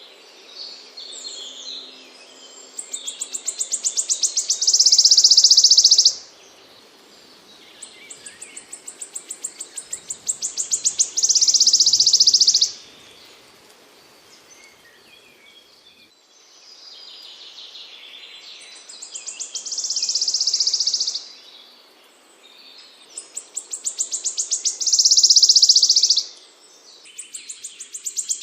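A small songbird repeating a high-pitched song about four times: each phrase is a run of quickening notes that builds into a loud buzzy trill lasting a second or two, with quieter gaps between.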